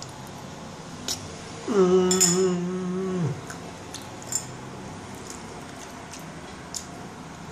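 Metal fork clinking and tapping against a bowl in a few sharp clicks while mixing a chicken salad. A little under two seconds in, a pitched voice-like hum sounds for about a second and a half, dropping at the start and then held level; it is the loudest sound.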